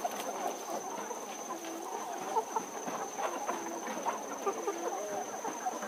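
A flock of hill chickens clucking, many short calls overlapping one another.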